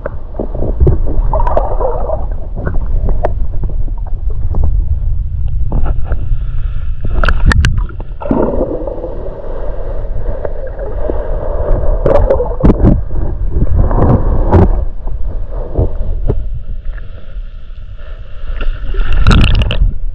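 Water heard through a microphone held under the lake surface: a muffled low rumbling and gurgling, broken by several sharp knocks and clicks.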